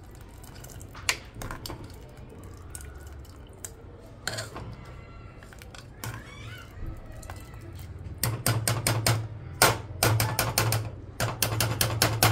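Metal ladle and spoon knocking and scraping against the sides of an aluminium pressure cooker while a chickpea curry is stirred: a few scattered clinks, then from about eight seconds in quick runs of rapid taps, the loudest sounds here.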